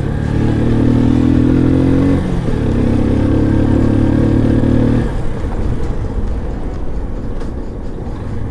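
Motorcycle engine running under way at steady revs, with a short dip about two seconds in. The engine note falls away about five seconds in, leaving a lower running sound with wind and road noise.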